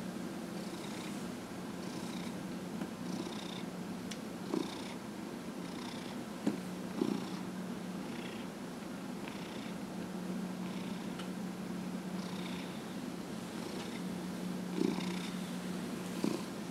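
Domestic orange tabby cat purring steadily while being massaged, the purr swelling and easing with each breath about once a second. A few brief soft knocks come through the purr.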